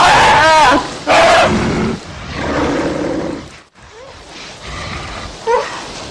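Wild animal calls: a loud, wavering high cry in the first second, then rougher, lower calls that break off briefly near the middle, and a short rising call near the end.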